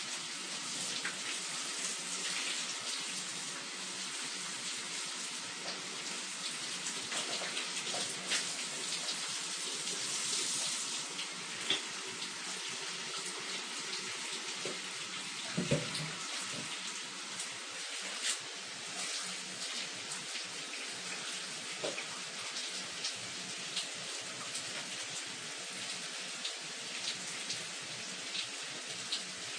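Shower running: a steady hiss of water spraying and splashing, with scattered small splashes and drips and one brief low knock about halfway through.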